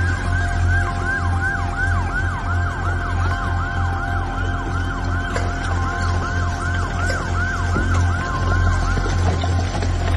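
Emergency vehicle siren sweeping up and down in fast cycles, about three a second, over a low steady hum; the sweeping stops near the end.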